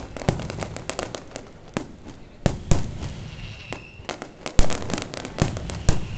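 Aerial fireworks shells bursting: a quick string of sharp bangs and crackles. The loudest reports come about two and a half seconds in and again near four and a half seconds.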